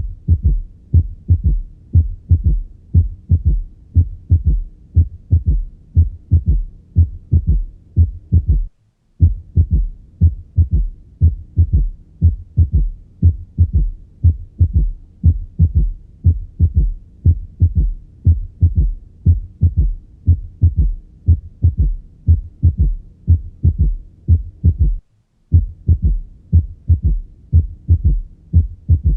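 Heart sounds heard through a stethoscope: a steady run of low thuds in which a third heart sound (S3) follows the two normal sounds of each beat. Twice the sound cuts out for about half a second.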